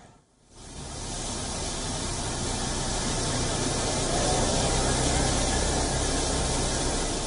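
Floodwater rushing down a street in a steady, hissing rush of water that starts after a brief silent gap.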